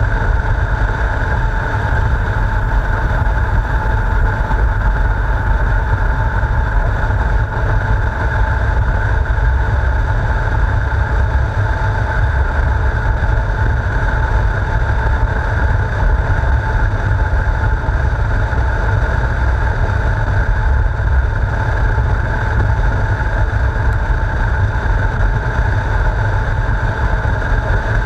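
Motorcycle riding along at a steady speed: engine running evenly under heavy low wind rumble on the bike-mounted camera's microphone.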